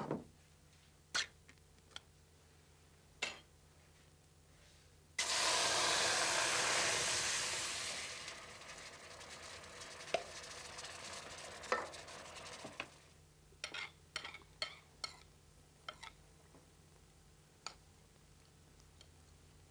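Canned food tipped into a hot pot on an electric hotplate, sizzling: a sudden loud hiss about five seconds in that fades away over several seconds. Before and after it come scattered sharp clinks of tins and cutlery.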